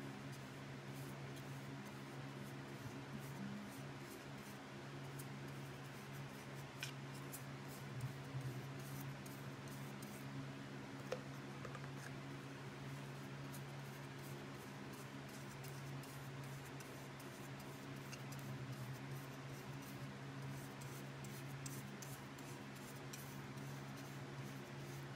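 Faint scratching strokes of a small bristle brush spreading mineral oil onto a carved poplar spoon, with a few light clicks, over a steady low hum.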